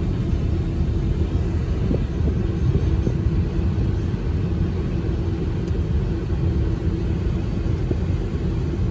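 Steady low rumble of a car's engine and road noise heard from inside the cabin, with a faint steady hum underneath.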